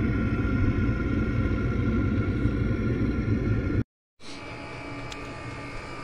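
Chinese diesel air heater's exhaust rumbling steadily out of the pipe end. About four seconds in it cuts off and gives way to the quieter steady hum of the heater itself running.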